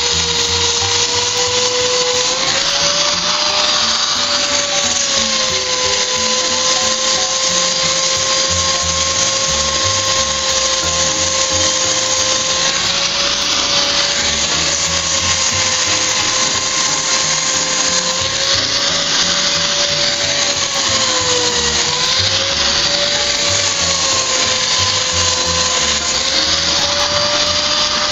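Hand-held electric polisher running a diamond polishing pad over patched terrazzo, with a steady motor whine and the hiss of the pad grinding on stone. The whine sags in pitch and recovers several times as the pad takes load.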